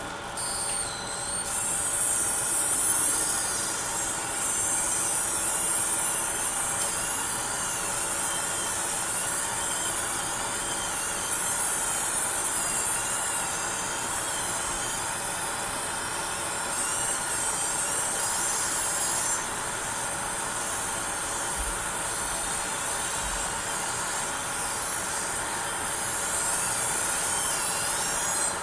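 Graphics card coil whine: a high-pitched electrical whine that wavers and shifts in pitch, with steadier lower tones beneath it. It sets in about a second in and eases somewhat about two-thirds of the way through.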